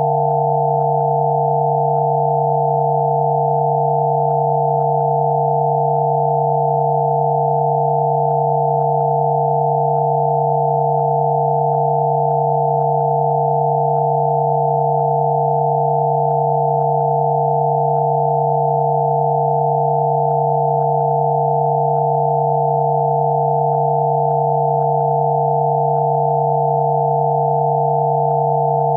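Synthesized pure sine tones for Rife frequency therapy: one low tone and several higher tones sounding together, steady and unchanging.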